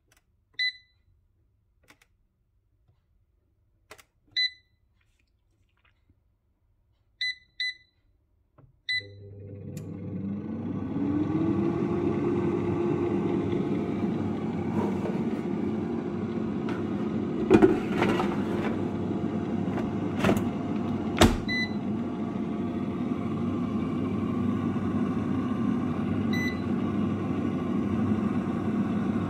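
A Cosori air fryer's touch panel gives several short single beeps as its buttons are pressed. About nine seconds in, the fryer's fan starts, its whir rising in pitch for a few seconds as it spins up and then running steadily. A few sharp knocks come partway through, and two more button beeps follow.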